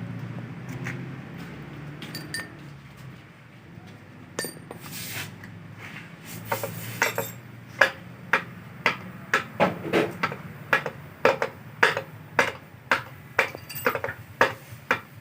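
A low rumble for the first few seconds, then a steady run of sharp metal-on-metal hammer strikes, about two a second, from about halfway through, as parts of a small diesel engine are worked on by hand.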